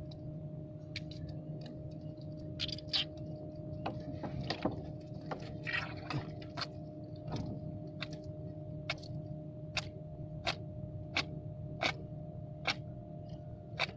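Steady hum of a motor on a fishing boat, with sharp ticks at a fairly regular pace, about one every 0.7 s, through the second half.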